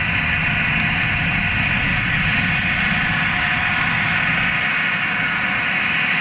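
Boeing 777 airliner's twin jet engines running as it rolls down the runway, heard from behind: a steady, even rushing noise.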